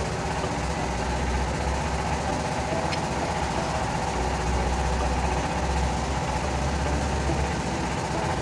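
Diesel engine idling steadily, a constant low rumble with a faint steady whine above it.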